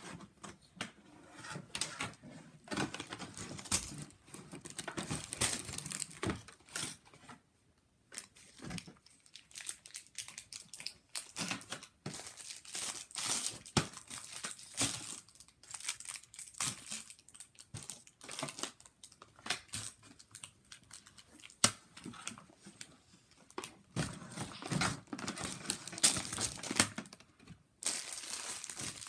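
Packaging crinkling and rustling as it is handled, with many irregular small clicks and taps.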